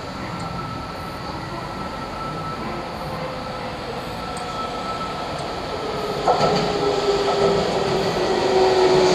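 Electric train drawing near, growing steadily louder with a steady whine. A clunk comes about six seconds in, followed by stronger tones and louder rumble.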